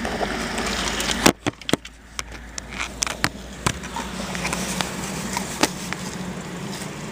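Steady low hum of an idling car heard from inside the cabin. A sharp click comes about a second in, followed by scattered, irregular clicks and crackles.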